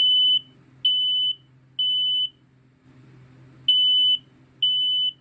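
Kidde i12060A ionization smoke alarm sounding its piezo horn on test: loud beeps at a low pitch for a smoke alarm, three in a row, a pause, then the next group of three begins. This is the temporal-3 alarm pattern.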